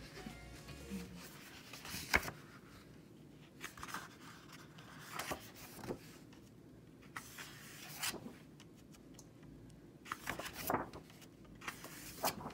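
Sheets of designer paper being handled and leafed through: scattered short rustles and soft taps, with one sharper tap about two seconds in.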